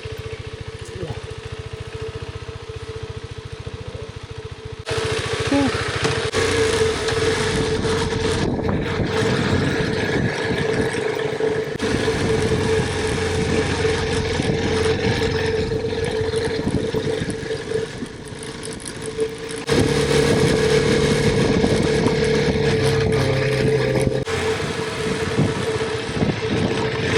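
KTM 390 Adventure's single-cylinder engine running steadily. It is quieter for about the first five seconds, turns suddenly louder and fuller, and steps up again about twenty seconds in.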